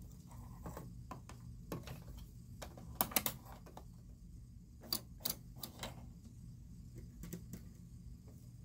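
Scattered light clicks and taps from hands handling the parts of a Singer sewing machine while rethreading it after a bobbin change, with a quick run of three clicks about three seconds in and a few more later, over a low steady hum.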